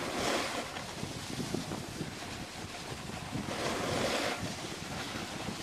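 Skis sliding and hissing over packed snow, with wind rushing on the microphone; the hiss swells at the start and again about four seconds in.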